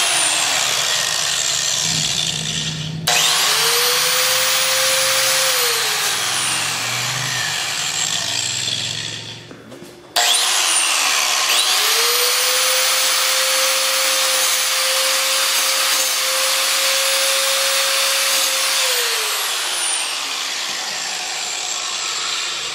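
Angle grinder grinding the aluminium body of an iPhone 6 in two runs. Each time it starts with a whine that rises quickly to a steady pitch under a harsh grinding hiss, then winds down. The first run starts about three seconds in, the second about ten seconds in, and that one runs longer before winding down near the end.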